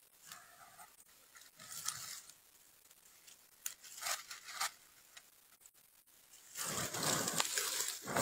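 Scuffling and rustling in dry pine needles and leaves as gray squirrels grapple with a snake: a few short scrapes, then louder, denser rustling starting about six and a half seconds in.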